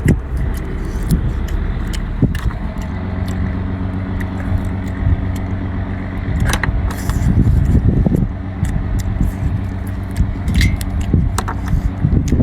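A steady low engine hum runs throughout, with scattered sharp clicks and clinks over it.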